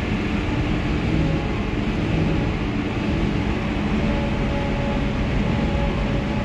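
Heavy farm machinery harvesting silage corn, running with a steady dense mechanical noise and a faint whine that comes and goes.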